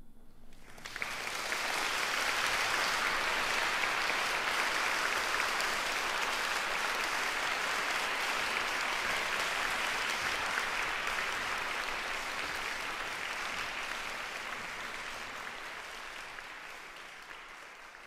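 Audience applauding in a concert hall. The applause breaks out about a second in as the last faint piano tones die away, holds steady, then slowly fades toward the end.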